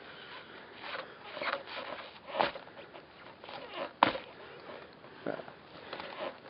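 Thin, newly formed lake ice being broken under a person's weight: low crunching with a few sharp cracks, the loudest about four seconds in.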